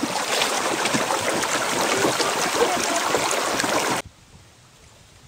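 River water splashing and rushing close to a paddled kayak, a steady noisy wash that stops abruptly about four seconds in.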